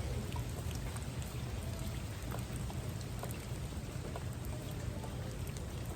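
Steady rain falling, with many scattered drops ticking sharply on a surface over an even hiss and a low rumble underneath.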